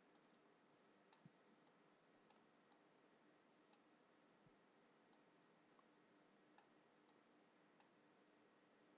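Near silence: room tone with a faint steady hum and a few faint, irregular clicks.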